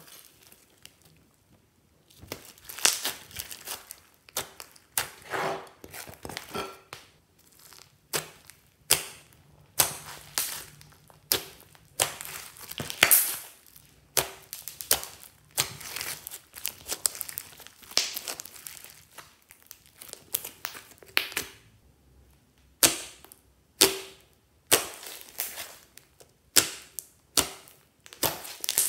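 Hands squishing and kneading glossy slime mixed with foam beads, giving irregular sharp crackles and pops, several a second, with brief pauses between squeezes.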